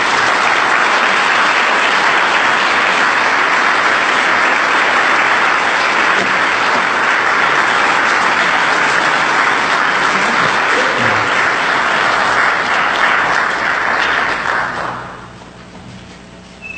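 Audience applauding steadily, then dying away about fifteen seconds in.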